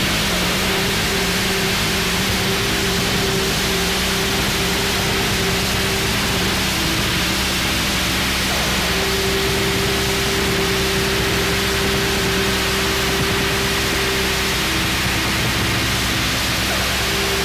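Harsh noise wall recording: a dense, unchanging wall of static filling the whole range, with steady low droning tones beneath it. One higher drone tone comes in about nine seconds in and drops out about five seconds later.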